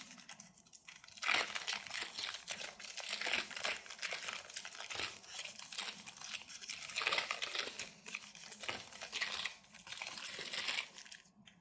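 Plastic blister packaging and a foil trading-card booster pack crinkling and tearing in irregular spells as they are worked open by hand.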